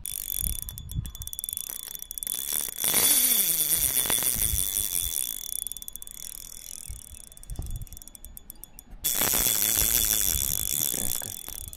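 Shimano Sedona spinning reel's drag buzzing as a big catfish pulls line off the spool, in two long runs, the first about three seconds in and the second about nine seconds in, its pitch sweeping with the speed of the line.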